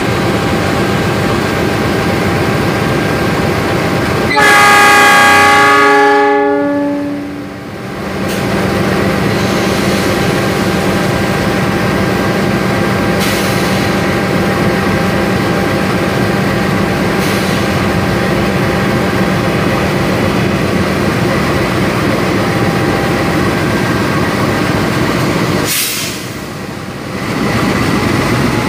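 CC206 diesel-electric locomotive sounding one multi-note horn blast about four seconds in, lasting about three seconds with its pitch sagging slightly, then its diesel engine running steadily as it pulls its train slowly out of the station. The engine sound drops briefly near the end.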